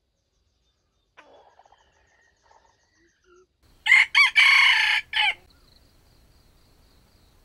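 Junglefowl rooster crowing once, loud and short, about four seconds in, broken into a few clipped syllables. Fainter, scattered calls come before it.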